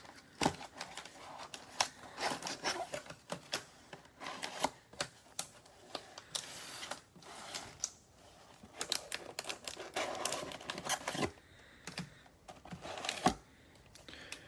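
Cellophane-wrapped packs of trading cards being taken out of the box and laid out on a table one after another: a run of light clicks and taps, with a few short stretches of crinkling wrapper.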